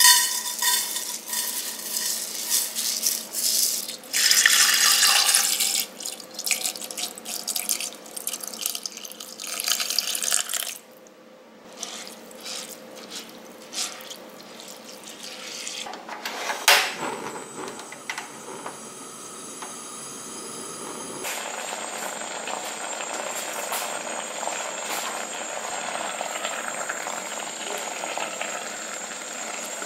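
Soaked rice rattles out of a metal strainer into an empty enamelled cast-iron Staub cocotte, then water is poured in and splashes as a hand stirs and checks its level. A sharp click comes about seventeen seconds in, followed by a steady hiss that grows slowly louder as the rice water in the pot comes up to the boil.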